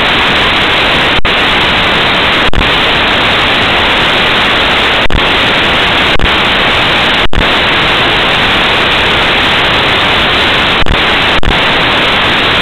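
Loud, steady static hiss in the recording, with no voices or room sounds coming through, broken by about seven brief dropouts with small clicks.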